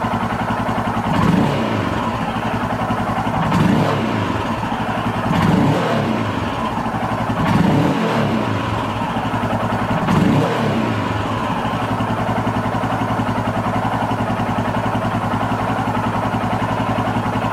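Royal Enfield Himalayan's air-cooled single-cylinder engine idling and blipped about five times in the first ten seconds, each rev rising and falling back quickly, then running at a steady idle. The quick pick-up on each blip is the sharper throttle response that the owner credits to the newly fitted FuelX Pro fuel tuner.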